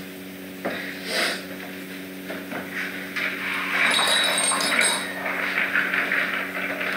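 Rustling and scuffing as a person's clothing and body brush close against the microphone of a room camera, with a few light knocks early on, over a steady low hum.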